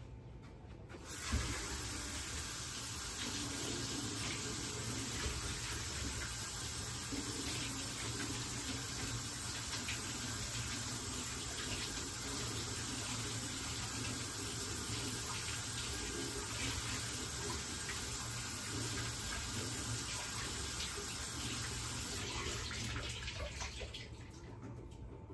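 Kitchen sink tap running steadily as warm water fills a dish to soak matzah. It comes on about a second in and is turned off near the end.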